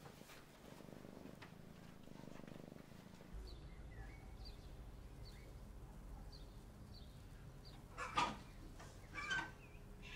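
Cat purring, a low steady rumble, for the first three seconds. After that, faint high chirps repeat every half second or so over quiet room tone. Two short louder sounds come near the end, about a second apart.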